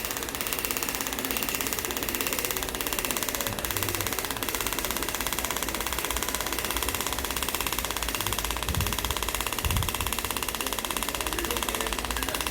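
Scalp micropigmentation tattoo machine buzzing steadily with a very rapid, even needle rhythm.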